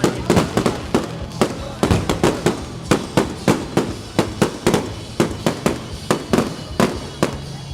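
Aerial fireworks display going off in a rapid, continuous string of sharp bangs, several a second.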